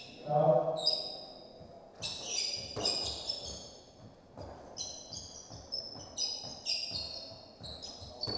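Court shoes squeaking on the hardwood floor of a squash court: a string of short, high squeaks, some sliding in pitch, over soft thuds of footsteps or a ball bouncing.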